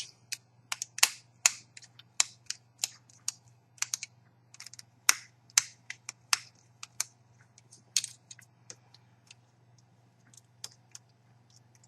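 Light, irregular clicks of a small screwdriver and small plastic and metal parts as the screw terminals on a CCTV video balun are loosened and the wires handled. The clicks come two or three a second at first and thin out in the last few seconds.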